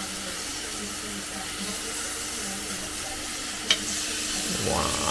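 Steaks sizzling on the grate of a Power XL Smokeless Indoor Electric Grill: a steady sizzle over a low steady hum, with one sharp tap about three and a half seconds in.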